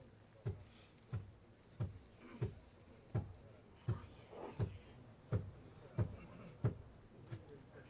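Regular low thuds, evenly spaced at about three every two seconds, each with a sharp click on top, with a brief hissing, rustling sound about halfway through.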